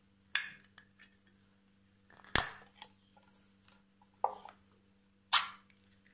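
Sharp metallic clicks and clinks from a ring-pull food tin being handled as its pull tab is prised up with a fingertip. There are about five or six separate clicks, the loudest about two and a half seconds in.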